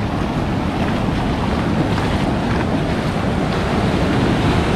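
Ocean surf washing and rushing around a wader's legs in the shallows, a steady rush of foaming water, with wind buffeting the microphone.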